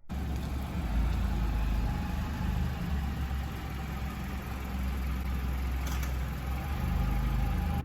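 Car driving along, a steady engine hum with road noise. There is a single light click about six seconds in.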